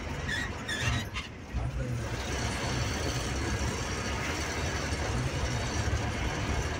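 Inside a moving bus cabin: the diesel bus engine runs with a steady low drone under road and tyre noise. The engine sound drops briefly about a second in, then returns and holds steady.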